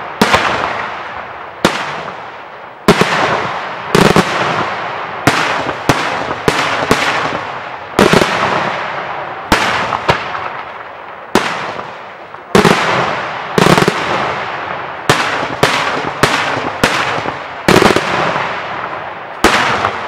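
Daytime aerial fireworks shells bursting in a rapid series of about twenty loud bangs, roughly one a second and sometimes in quick clusters. Each bang trails off in a rolling echo and crackle.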